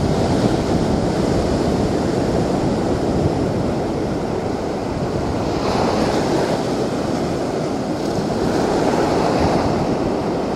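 Small waves breaking and washing up on a sandy shell beach, a steady surf wash that swells twice, about halfway through and near the end. Wind buffets the microphone with a low rumble.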